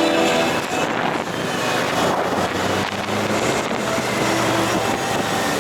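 Motorcycle on the move: wind rushing over the microphone on top of the engine's steady drone. The last of a music track fades out at the very start.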